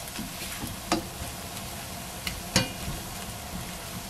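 Soy-and-fish-sauce mixture and diced vegetables sizzling in a nonstick frying pan while a spatula stirs, with a few knocks of the spatula on the pan, the loudest about two and a half seconds in. The sauce is being cooked in the middle of the pan before the shrimp and rice go in.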